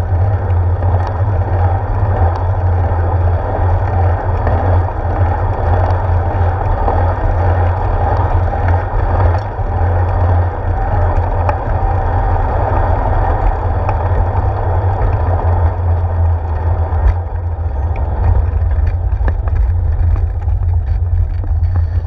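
Steady low rumble of a moving bicycle heard through a handlebar-mounted GoPro: wind on the camera and road vibration carried through the mount, with a few light rattles.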